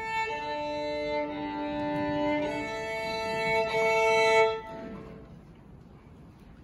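Music: slow, sustained chords, several notes held together and shifting, growing louder before ending about five seconds in and dying away.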